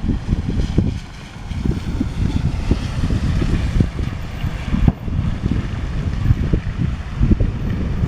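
Aerial fireworks going off in quick succession: a dense run of deep booms with a hissing crackle over them, muddied by wind buffeting the microphone.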